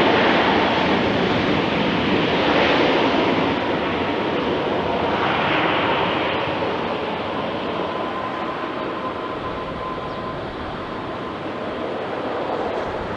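Jet airliner engines passing close by: a loud, broad rush that slowly fades, with a faint steady whine coming through midway.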